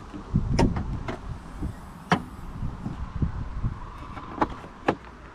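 Several sharp clicks and knocks over a low rumble.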